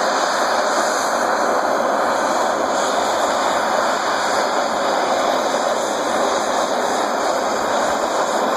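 Handheld propane torch burning with a steady hiss, its flame heating an aluminum snow shovel blade for brazing with an aluminum brazing rod.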